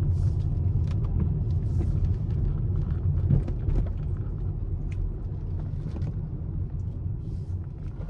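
Chevrolet Camaro SS's 6.2-litre V8 running at low speed, a steady low rumble heard from inside the car, easing off slightly about halfway through.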